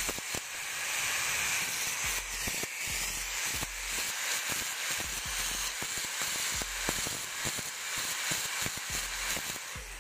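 Angle grinder grinding down the fresh weld joining two steel bicycle headset cups: a steady harsh grind, strongest in the high range, with many small knocks and clicks throughout.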